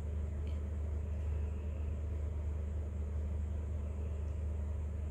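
Steady low hum with a faint even hiss of room noise, no change throughout.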